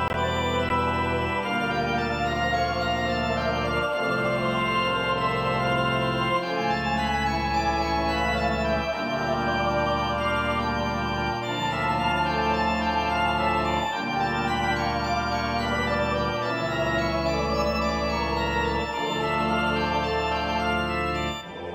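Organ music: held chords over a bass note that changes about every two and a half seconds.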